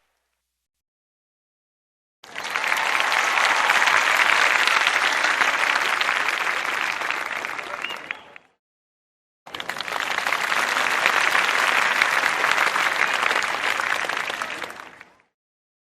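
Two separate takes of a crowd applauding, each several seconds of dense clapping that starts abruptly and fades away, with about a second of silence between them.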